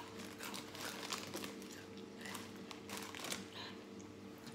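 Plastic snack packet crinkling, mixed with the crunch of a crisp snack being chewed, in a run of irregular sharp crackles.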